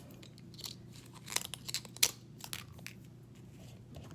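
Plastic shrink seal being torn along its perforation and peeled off a bottle: irregular small crinkles and crackles, bunched together around the middle.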